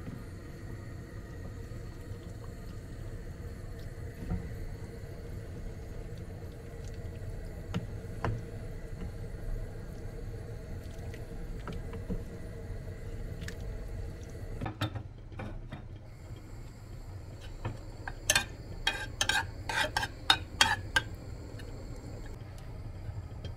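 A wooden spoon stirs a stew in an aluminium pot over a steady low hum. About two-thirds of the way in, a metal spoon clinks and scrapes against a small aluminium saucepan while stirring tomato paste into oil, with a quick run of sharp clinks near the end.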